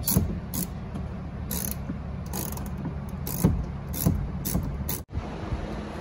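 Hand ratchet clicking in short, irregular runs while grab-handle bolts are tightened into the truck's cab roof.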